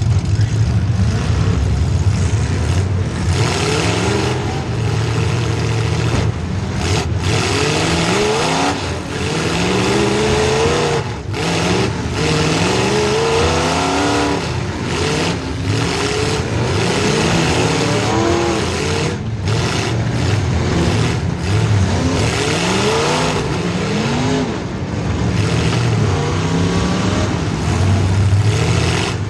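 Demolition derby car's small-block Chevy V8 revving hard again and again, its pitch climbing and dropping as the throttle is worked.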